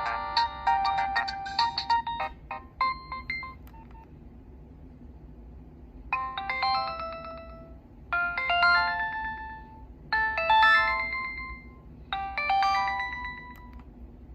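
Nokia 6016i's built-in polyphonic ringtones playing. One melody ends about three and a half seconds in, and after a short pause another begins: a quick chiming phrase of several notes, repeated four times about two seconds apart.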